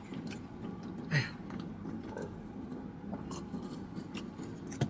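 A man drinking from a glass: faint sips, swallows and small clicks, with a short breathy vocal sound about a second in.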